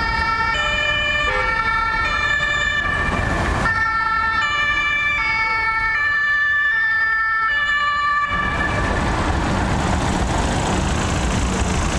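A fire-department ambulance's German two-tone siren sounds its alternating 'tatütata', switching between two pitches a little faster than once a second. About eight seconds in the siren stops, leaving loud, even road and engine noise as the vehicle passes close by.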